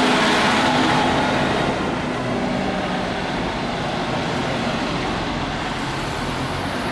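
A heavy road vehicle's engine running close by, loud at first and easing off a little after about two seconds.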